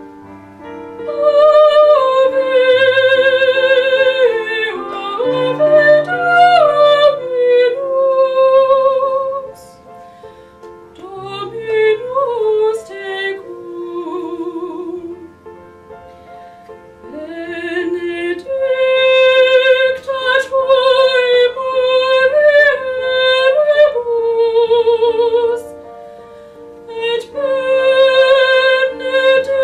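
A woman singing solo in a classical, operatic style with a strong vibrato on her long held notes, over a soft instrumental accompaniment of held chords. The voice drops to a quieter passage in the middle before rising loud again.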